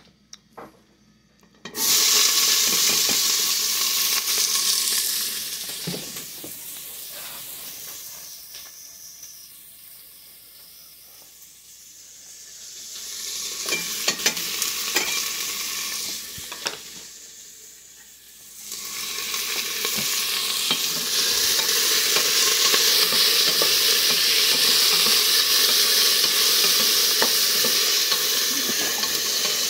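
Diced onion frying in hot oil in a stainless steel stockpot: a sizzle that starts abruptly about two seconds in as the onion hits the oil. It dies down, swells again with a few sharp clicks, and then runs loud and steady.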